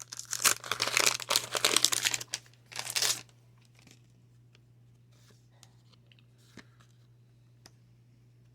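A 1990 Fleer baseball card pack's wax-paper wrapper being torn open and crinkled for about three seconds, then only a few faint ticks of handling.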